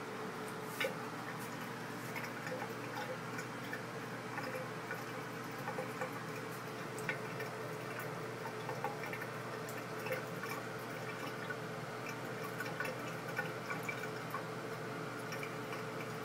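A thin stream of tap water running from a faucet into a bathroom basin, with small irregular ticks and splatters as a cat laps at the stream.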